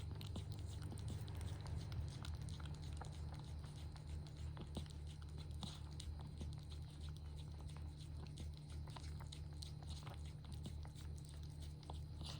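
A mother cat chewing and licking with small soft wet clicks, over a low pulsing hum.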